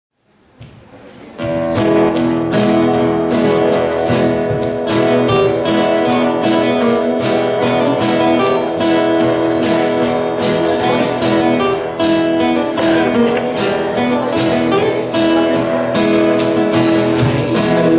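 Live country band playing an instrumental intro: strummed acoustic guitar in a steady rhythm over upright bass and fiddle, fading in and reaching full level about a second and a half in, with no singing yet.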